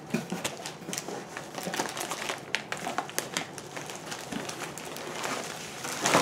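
Clear plastic cellophane sleeve crinkling with irregular small crackles as it is handled and laid down on the table.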